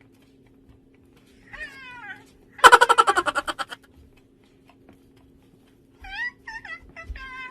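Owleez electronic toy owl making its squeaky sound effects: short chirps that slide up and down, a loud rapid trill about three seconds in, and a string of quick chirps near the end.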